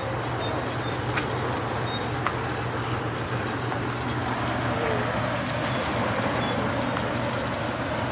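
Steady low mechanical hum over constant outdoor background noise, with a few faint clicks.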